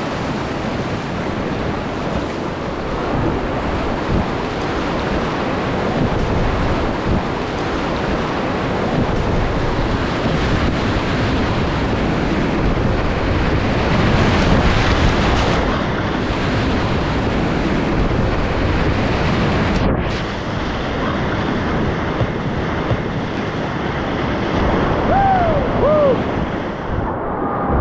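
Whitewater rapid rushing and splashing around a kayak, with wind on the microphone. The water is loudest about halfway through, as the boat reaches the breaking wave.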